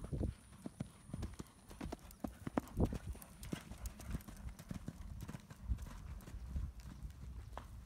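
Hoofbeats of a cantering horse on a sand arena footing: a run of dull, uneven thuds, several a second, loudest about three seconds in as the horse passes close.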